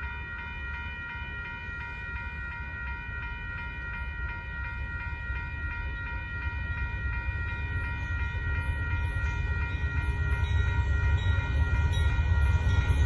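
Railroad grade-crossing bell ringing steadily, over a low rumble from the approaching Union Pacific freight train that grows steadily louder.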